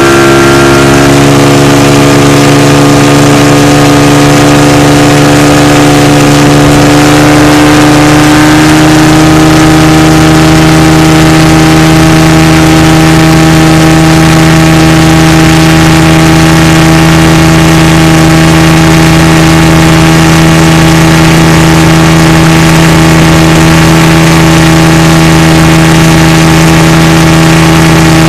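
Motorboat engine running loud and steady. Its pitch rises about a second in and again around eight seconds in, then holds.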